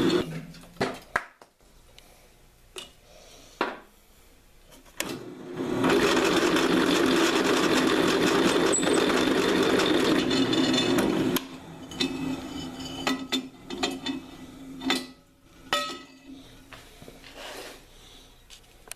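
Electric drill running and boring through metal for about five seconds in the middle, with a steady hum under the cutting noise. Scattered clicks and knocks of metal parts being handled come before and after.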